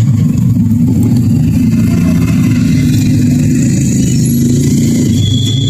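A vehicle engine running steadily and loud, close by.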